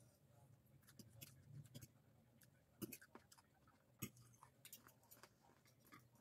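Faint clicks and taps of a metal fork and spoon against a plate while twirling spaghetti, the two loudest taps about three and four seconds in.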